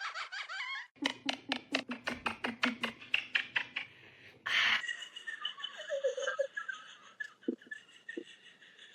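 A person laughing in quick, rhythmic bursts for the first few seconds, then a short burst of noise about halfway through, followed by fainter high-pitched wavering sounds.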